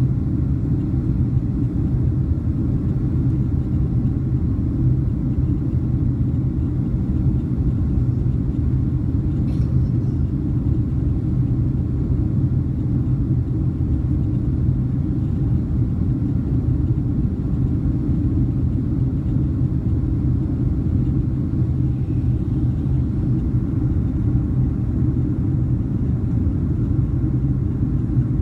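Steady low rumble of engine and airflow noise inside the cabin of a Boeing 767-300 climbing out after takeoff.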